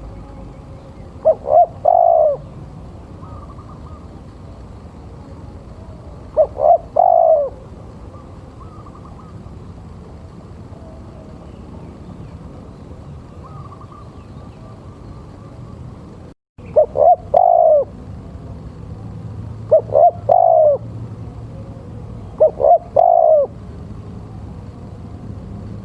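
Male spotted dove (tekukur) cooing: five phrases a few seconds apart, each two short notes followed by a longer drawn-out coo, over a steady background hiss. The audio drops out for a moment just before the third phrase.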